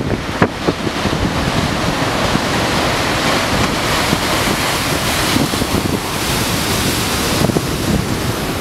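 Heavy storm surf breaking and crashing against rocks, a loud continuous churning roar of white water, with strong wind buffeting the microphone.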